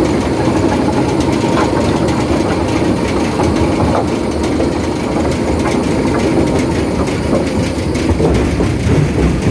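Granite stone-crushing plant running: a steady, loud mechanical din from the crushers and conveyor belts, with many small ticks and clatters of crushed stone.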